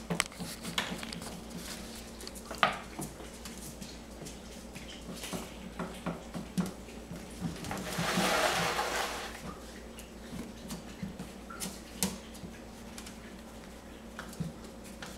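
Cavalier King Charles Spaniel puppies playing among hard plastic toys on a tile floor: scattered light clicks and knocks of plastic balls, plastic slide and claws, with about a second of scraping rustle near the middle.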